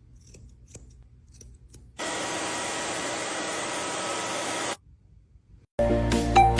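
Hair dryer blowing steadily for nearly three seconds, switching on and off abruptly, after a faint low hum with a few light clicks. Near the end, music with plucked notes and a beat starts.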